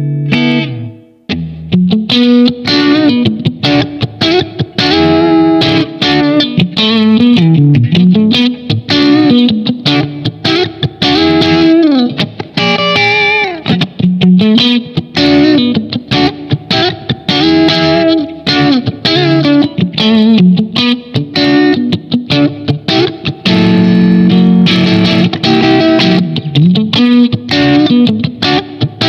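Soloking MS-1 Custom 22 HSS electric guitar played through an amp with effects: a held chord dies away about a second in, then a run of fast single-note lead lines with string bends.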